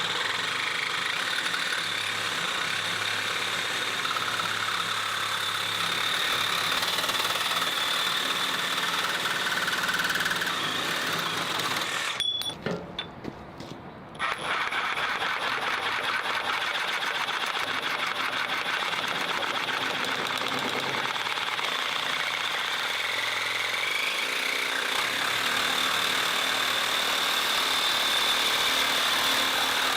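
Makita JR001G 40V XGT brushless cordless reciprocating saw running steadily. It stops for under two seconds about twelve seconds in, then starts again.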